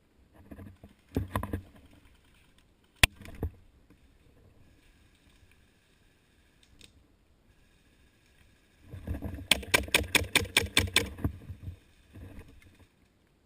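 Airsoft gun firing: a single sharp crack about three seconds in, then near the end a rapid, evenly spaced string of about a dozen shots, about seven a second, over rustling movement.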